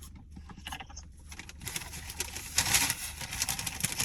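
Close-miked eating sounds: chewing with small wet mouth clicks, growing into louder rustling and crunching noise from about halfway through.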